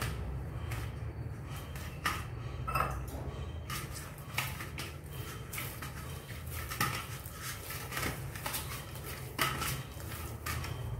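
Hand-kneading stiff puri dough in a stainless steel bowl: irregular knocks, scrapes and light clanks of the dough and fingers against the metal bowl, over a steady low hum.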